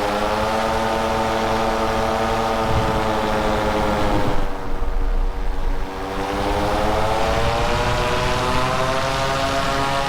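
Paramotor engine and propeller running steadily in low flight. The engine note sags from about four seconds in, with a low rumble, then climbs back up over the next few seconds.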